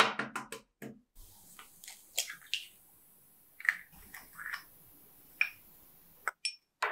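An egg is cracked against a glass mixing bowl at the start, a quick cluster of sharp clicks and cracks that is the loudest sound here. Then a spoon scrapes and knocks against a small ceramic cup as the cocoa and sugar are tipped into the bowl, with a few quick taps near the end.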